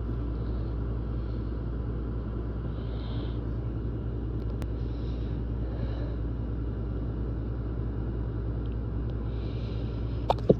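A steady low rumbling hum runs under everything. Near the end a person lets out a stifled sneeze in two sharp, held-back bursts.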